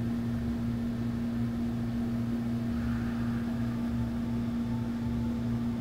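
Steady low machine hum with a constant drone and a faint pulsing rumble beneath it.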